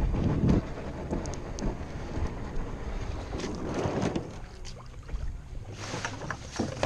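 Canoe being slid down a concrete boat ramp into shallow water: hull scraping and knocking, with wind buffeting the microphone, heaviest at the very start. A few light knocks near the end as the paddles and gear inside the canoe are handled.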